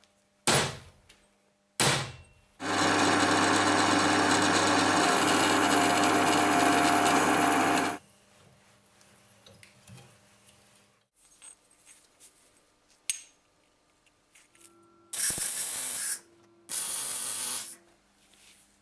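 Two strokes of a hand file on a steel plate, then about five seconds of a steady, loud metalworking noise, some small clicks and one sharp click, and two short loud bursts of about a second each near the end.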